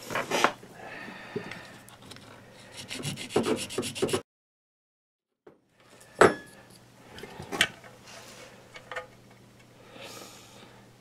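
A hand file rasping in strokes against a small hand-made replacement part, speeding up into a quick run of strokes just before a cut to silence about four seconds in. Afterwards come two sharp clicks and lighter scraping as the part is handled and fitted.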